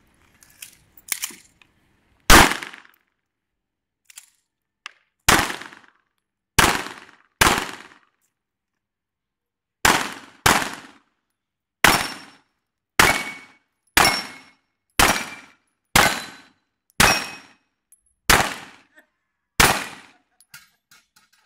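Semi-automatic pistol fired fourteen times, mostly single shots about a second apart with a few longer gaps, each crack followed by a short echo. A few faint clicks come just before the first shot.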